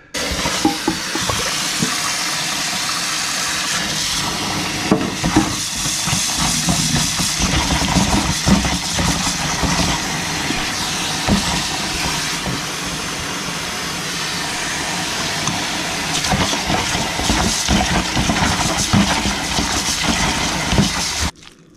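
Kitchen tap water running into a plastic strainer full of whitebait over a stainless steel sink, with splashing as a hand stirs the fish through the stream: a steady hiss of running water that cuts off just before the end.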